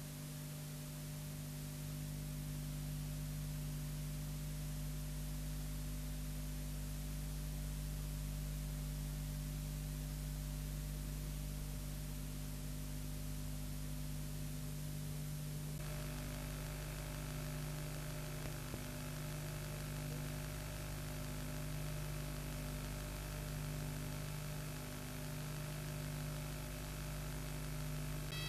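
Steady electrical hum with hiss on the sound channel of an off-air satellite TV feed showing a caption, with no programme sound. About halfway through, the hum changes to a denser buzz with more tones.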